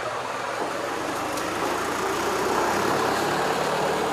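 A motor vehicle's engine running close by, the sound growing gradually louder as it approaches.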